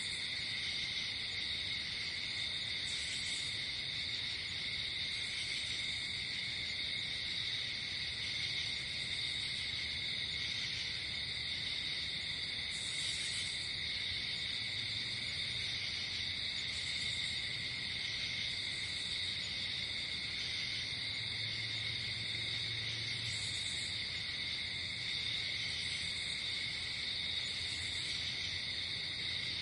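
Night insect chorus of crickets trilling steadily without a break, with shorter, higher insect calls that come and go every second or two.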